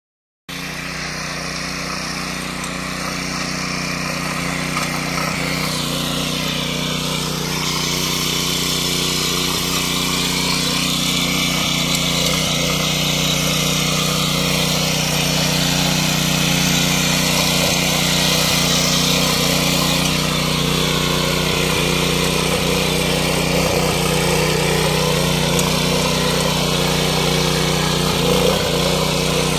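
Walk-behind rotary tiller's small air-cooled engine running steadily under load as its tines churn through soil. It grows gradually louder as the machine comes closer.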